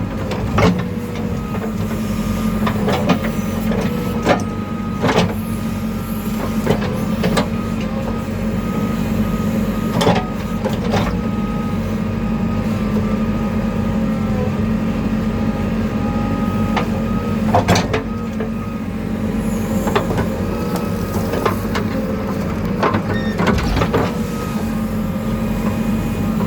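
Diesel engine of a JCB 3DX backhoe loader running steadily under working load, with a faint whine that bends a little in pitch, and repeated sharp knocks and clanks.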